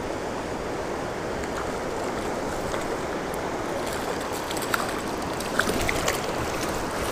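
Steady rush of creek water, with a few short splashes past the middle as a hooked brown trout thrashes at the surface.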